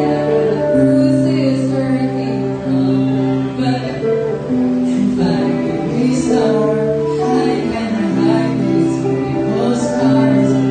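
Slow, gentle song with guitar and a female singing voice, its notes long and held.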